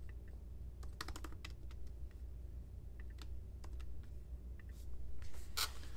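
Typing on a MacBook laptop keyboard: light key clicks in a few short clusters, with a brief louder rub shortly before the end.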